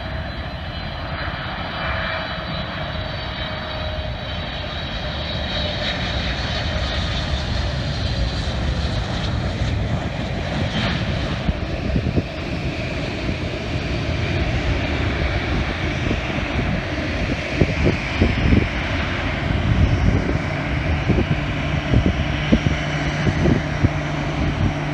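Boeing 777 jet engines roaring as the airliner rolls out on the runway after touchdown. A whine falls slowly in pitch over the first several seconds, and irregular low thumps come in the last few seconds.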